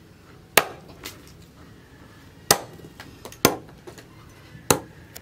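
A forged steel cleaver chopping through green stalks and striking the wooden chopping block beneath: four sharp chops, unevenly spaced, with a faint tap near the end.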